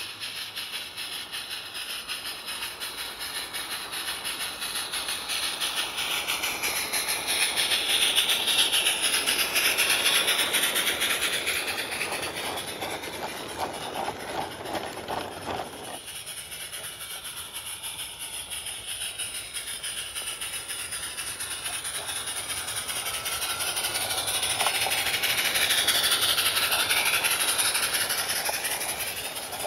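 Small live steam garden-railway locomotive, an Accucraft Edrig, running with rapid exhaust beats and steam hiss while its train of small wagons clicks and rattles over the track. It grows louder as the train passes close by, twice.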